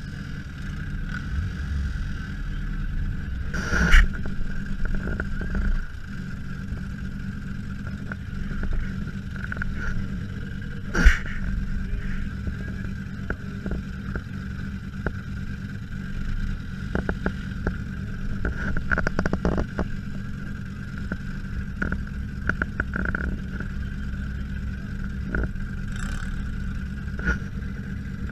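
Four-cylinder engine of a stripped demolition-derby Honda Civic running, heard from inside the gutted cabin, a steady hum with a constant high whine over it. Two sharp metal bangs stand out, about 4 and 11 seconds in, with smaller knocks and rattles later.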